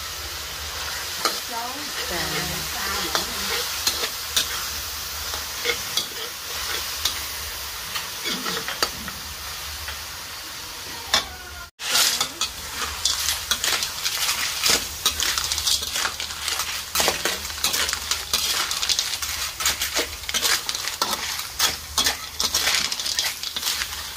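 Sauce sizzling and bubbling in a metal wok while a metal spatula scrapes and stirs. About halfway through, after a brief break, clams in their shells are tipped into the wok and rattle against the metal as they are stir-fried, with denser clicking and louder sizzling.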